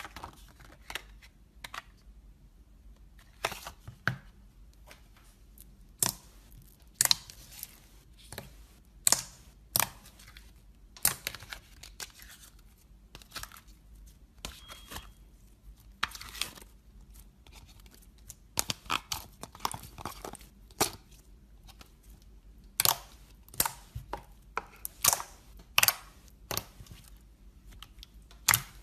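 Crisp crackling and crunching of material being handled close to the microphone: irregular sharp snaps, often several a second, some much louder than the rest.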